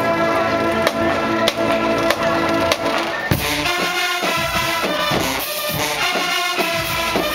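A large marching band's brass and drumline. For about three seconds it holds a loud sustained brass chord, struck with sharp drum and cymbal hits roughly every half second or so. It then breaks into a punchy, rhythmic brass riff driven by the drums.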